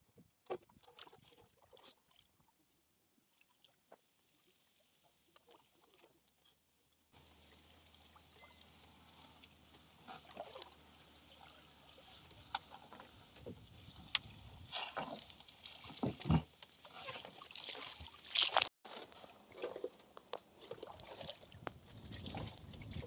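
Cast net being hauled up out of the water into a wooden canoe: water splashing and dripping off the mesh, with scattered knocks against the hull. Sparse clicks at first, then the background grows abruptly about seven seconds in and the splashes and knocks come thick and fast.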